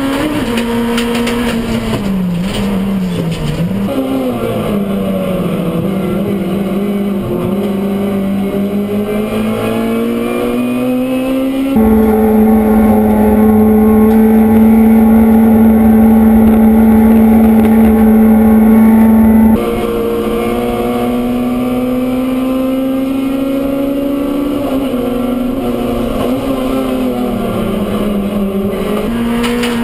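Race car engines heard from inside the cockpit at racing speed: a steady, high engine note that dips and climbs again a few times as the driver lifts and shifts. About 12 seconds in, the sound switches abruptly to a louder, steadier engine note from a different car, then switches back about 20 seconds in.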